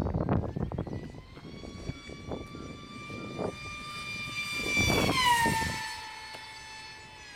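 A Multiplex FunJet Ultra 2 RC jet's high-revving electric motor and propeller whine as it makes a fast low pass. The pitch creeps up as it closes in and is loudest about five seconds in, then drops sharply as it flies past and fades. Gusty rumbling on the microphone is heard in the first second.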